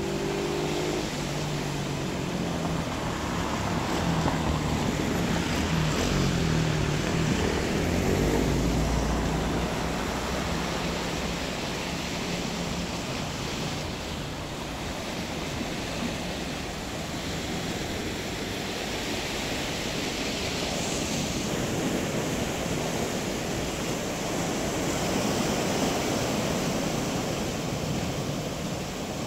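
Sea waves washing onto the shore, a steady surf rush that swells and eases every few seconds. A low engine hum runs under it for roughly the first dozen seconds.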